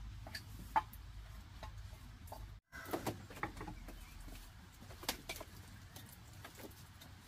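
Scattered light clicks and knocks of bowls and kitchen utensils being handled, with birds calling faintly in the background.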